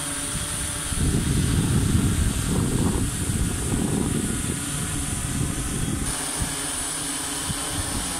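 Propellers of three multirotor drones (SY-1000 and SY-1200) whirring steadily as they hover and fly together. A louder low rumble runs from about a second in to about five seconds.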